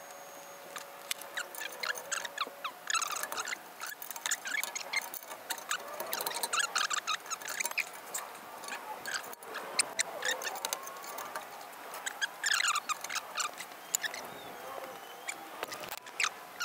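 Breaker bar, adapter and deep socket clicking and clinking against one another and the exhaust flange as they are fitted onto a stuck exhaust nut, in clusters of small sharp clicks with short high squeaks among them.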